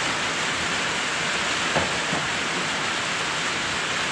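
Steady heavy rain drumming on a metal carport roof, an even hiss. Two faint knocks about two seconds in.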